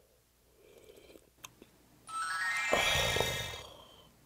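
Edited-in magical sparkle sound effect: a shimmering chime run that climbs upward for about two seconds, starting about two seconds in, over a soft low swell.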